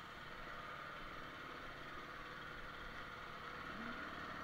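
Air compressor running steadily with an even hum.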